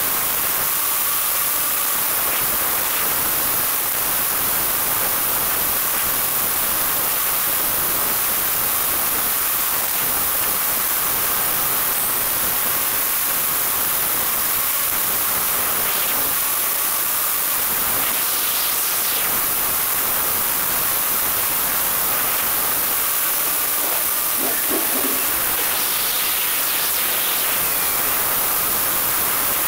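Steady hiss of a battery-powered RC car running on an asphalt trail: tyre and wind noise picked up by a camera riding on the car, with a faint steady whine under it.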